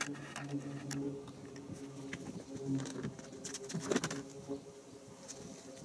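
Dove cooing in the background: short repeated low coos. Scattered light clicks run through it, and about four seconds in comes a brief louder wet sound as a wash mitt is dipped into a bucket of car-wash suds.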